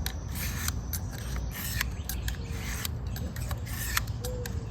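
Steel utility knife blade edge scraped in repeated strokes across the fine side of a diamond sharpening stone.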